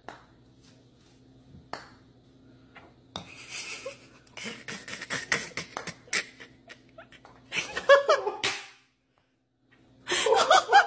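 A person laughing in bouts, loudest about eight seconds in and again near the end, over a steady low hum. A sharp click comes under two seconds in.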